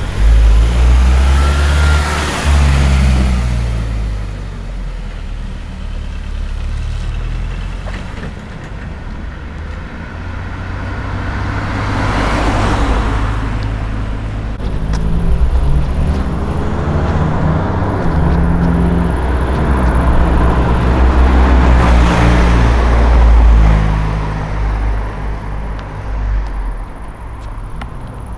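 Motor vehicles passing by on a road: engine and tyre noise swells and fades three times, about ten seconds apart, with the engine note dropping in pitch as the first one goes past.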